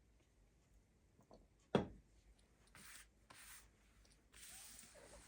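Tarot cards being handled on a table: a sharp tap about two seconds in, then two spells of papery rustling as the cards are shuffled.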